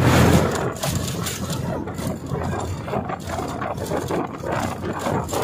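Moving bus heard from a passenger seat by an open window: engine drone with rattling of the body and road and wind noise. It is louder at the start as another bus passes close alongside.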